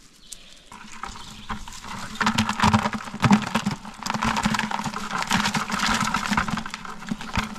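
Live crawfish being shaken out of a plastic-mesh crawfish trap into a plastic bucket: a dense, rapid patter of shells and claws clicking and clattering against the bucket and the mesh, starting about two seconds in.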